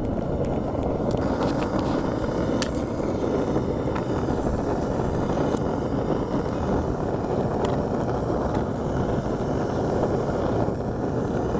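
Gas-fired foundry furnace burner running with a steady rushing noise, with the furnace at full heat for melting aluminium. A few faint ticks sound over it.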